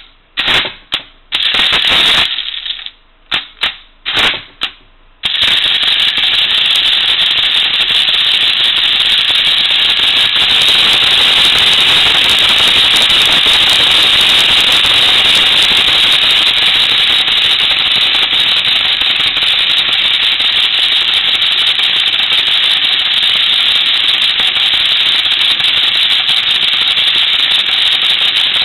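Mechanical calculator dividing by zero: a few separate clacks as keys and levers are set, then about five seconds in the mechanism starts and runs on in a steady, continuous clatter, cycling over and over without ever reaching a result.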